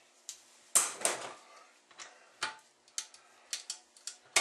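Socket wrench clicking and metal tools clinking in sharp, irregular taps while a stuck 7/16 bolt is worked loose; the loudest clink comes about a second in, and another near the end.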